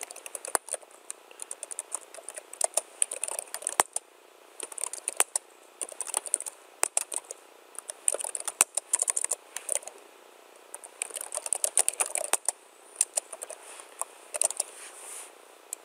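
Typing on a computer keyboard: spells of quick keystrokes broken by short pauses, with a few louder single key strikes standing out.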